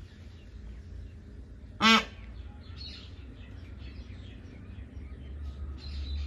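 A single short, loud honking call from an Indian peafowl about two seconds in, over a low steady rumble.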